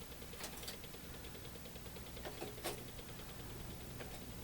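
Quiet room tone with a low steady hum and a few light clicks and taps, the clearest one a little past the middle.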